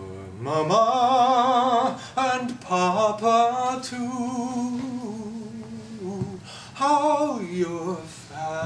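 A man singing long held notes with vibrato, sliding up and down in pitch between phrases, with short breaks.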